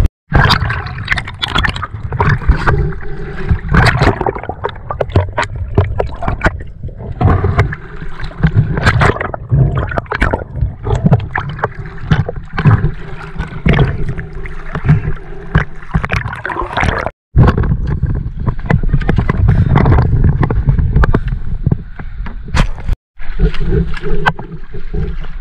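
Sea water sloshing, splashing and gurgling against a camera held at the surface of choppy water, with waves washing over the microphone again and again. The sound breaks off for an instant twice.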